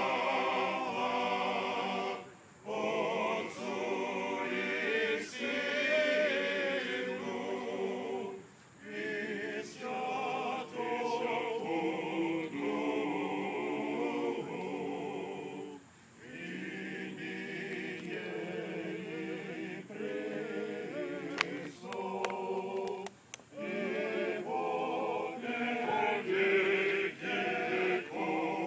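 Serbian men's choir singing unaccompanied in several voice parts, in long sustained phrases broken by short pauses about every six or seven seconds.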